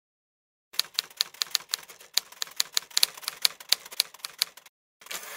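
Typewriter-like clacking: a quick, uneven run of sharp key strikes for about four seconds, a short pause, then a brief denser rattle.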